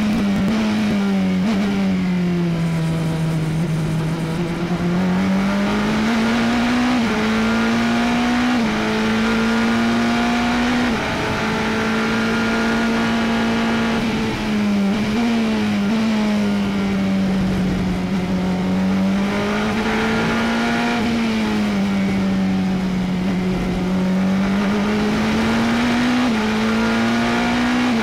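Glickenhaus 007 LMH's twin-turbo V8 heard from inside the cockpit at racing speed, its note sinking and climbing again and again with the throttle and gear changes through corners, holding steady for a few seconds on a straight around the middle.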